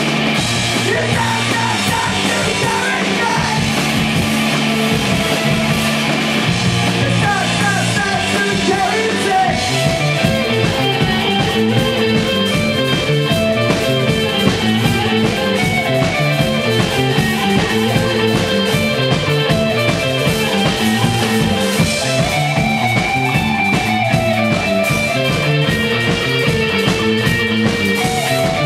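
Live rock band playing: electric guitar, bass guitar and drum kit together at a steady level with a driving beat.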